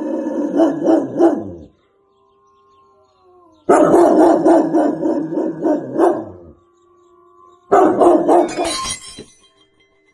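Dog barking in rapid runs, in three stretches with short quieter gaps between them.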